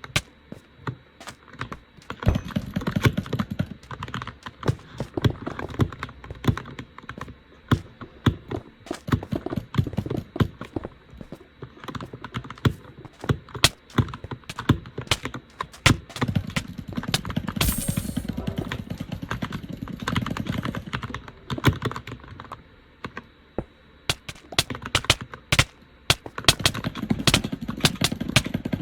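Computer keyboard being typed on: quick bursts of key clicks with short pauses between them.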